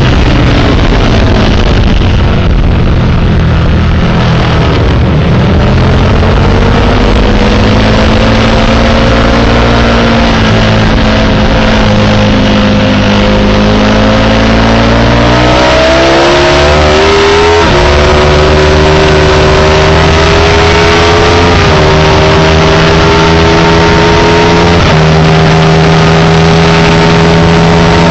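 Sport motorcycle engine heard from on board at racing speed: the revs fall as it slows for a corner, dip through the bend, then climb hard as it accelerates out, with three quick upshifts in the second half.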